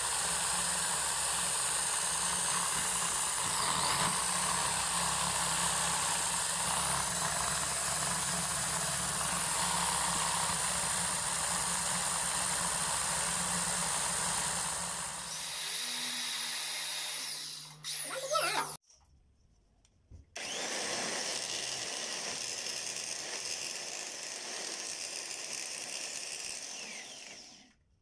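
A power tool running steadily. It changes note about halfway through, stops for about a second and a half, then runs again before cutting off near the end.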